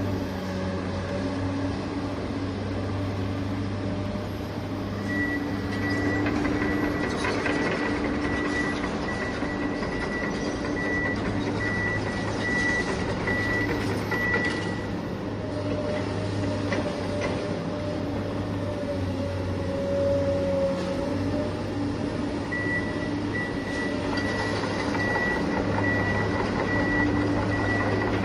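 Remote-control toy excavator running, with a steady hum from its small motors and gears. A thin high tone comes in about five seconds in, drops out near the middle, and returns near the end.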